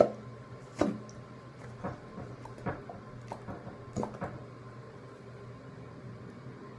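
Cheek pops, made by flicking a finger out of the mouth: about eight short pops at an uneven pace over the first four seconds or so, then only a faint low hum.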